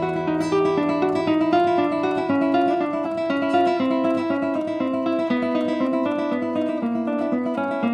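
Solo guitar playing a study: a steady run of quick plucked notes, several a second, over low bass notes.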